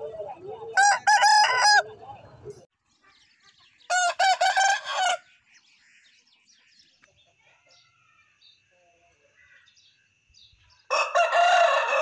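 Aseel gamefowl roosters crowing: three short crows, about a second in, about four seconds in and near the end.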